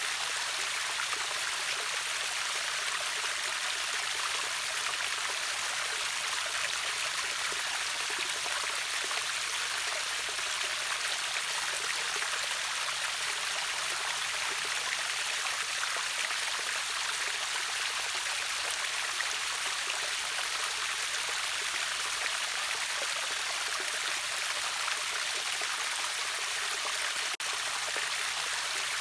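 River water rushing over a waterfall: a steady, bright, hissing rush with little deep rumble, broken by a momentary dropout near the end.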